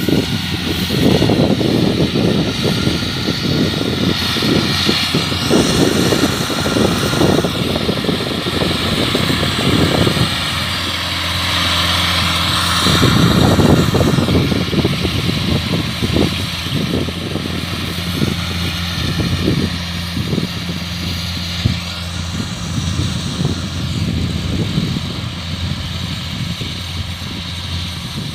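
Kubota rice combine harvester running steadily with a constant engine hum, louder about halfway through and easing off near the end.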